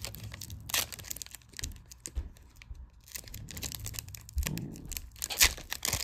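Foil wrapper of a Donruss Optic basketball card pack crinkling and tearing as it is pulled open, in irregular short crackles.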